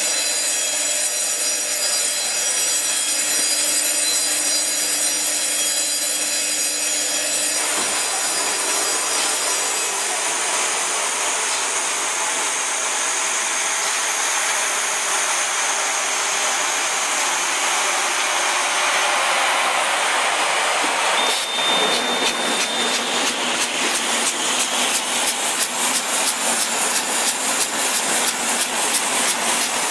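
Snack flow-wrap packing machinery running: a steady mechanical noise with high whining tones, then a fast, regular clacking over the last third.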